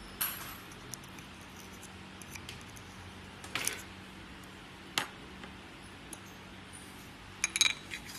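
Scattered light clicks and clinks of small metal parts being handled while an LED drop-in module is fitted into a Maglite ML300L flashlight head, with a quick cluster of clinks near the end.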